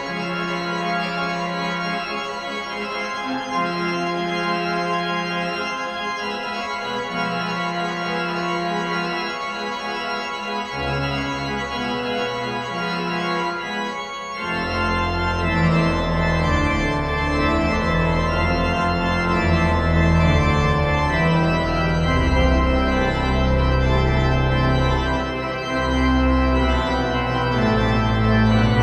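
Pipe organ music: slow, held chords, with deep pedal bass notes coming in about halfway through as the music grows louder.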